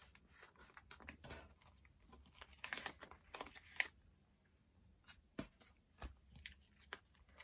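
Faint rustling and crinkling of plastic photocard sleeves and cards being handled, with scattered light clicks and a busier patch of crinkling about three seconds in.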